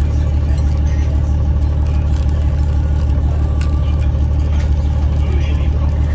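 A steady low mechanical drone, like an engine running, with a few faint light clicks over it.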